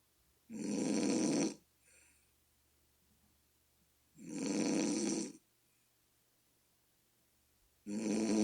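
A sleeping person snoring: three loud snores about three and a half seconds apart, each lasting about a second, with a brief softer breath just after the first. The snorer likens the snoring to a bullfrog's call.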